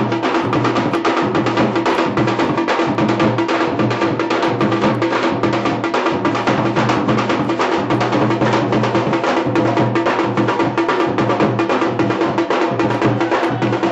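Dhol, a large double-headed barrel drum, beaten in a fast, steady, unbroken rhythm for dancing.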